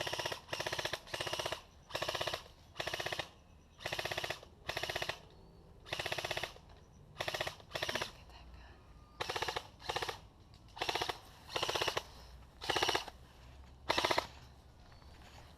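An airsoft gun firing on full auto in about seventeen short bursts, roughly one a second, each a quick rattle of shots: suppressing cover fire.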